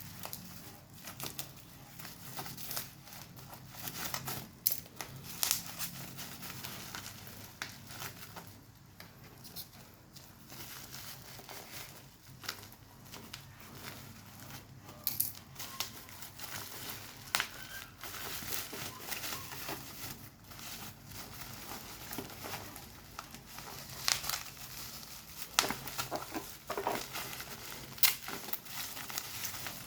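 Phone packaging being handled: plastic and cardboard crinkling and rustling, with irregular small clicks and taps.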